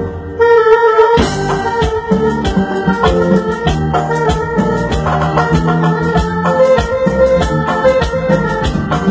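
Live band music: an electronic keyboard playing sustained organ-toned chords over a steady drum beat. It drops briefly at the start and comes back in full about half a second in.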